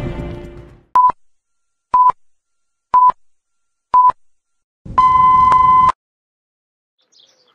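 Intro music fading out, then a film countdown leader sound effect: four short high beeps a second apart, followed by one longer beep about a second long.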